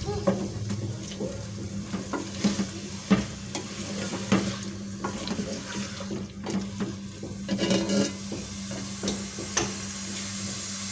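A spoon stirring and scraping food in a cooking pot over the heat, with irregular knocks of the spoon against the pot and a frying sizzle beneath, over a steady low hum.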